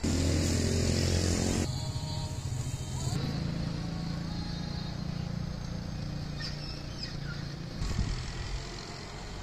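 Motor vehicle engine noise from road traffic: a loud passing vehicle at first, then a steady low engine hum. The sound changes abruptly a few times.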